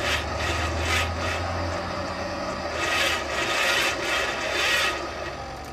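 Radio-controlled steering drive of a golf-cart-sized RC car: a roller chain running over a sprocket, a steady low hum with rasping, rubbing surges about a second, three seconds and nearly five seconds in as the steering is worked.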